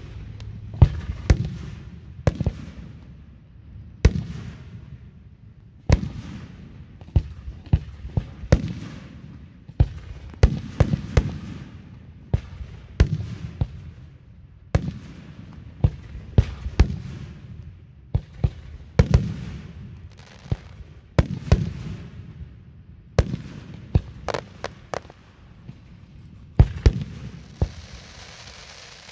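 Aerial fireworks shells bursting overhead in quick succession: sharp bangs every second or two, some in rapid clusters, each trailing off in a short echo.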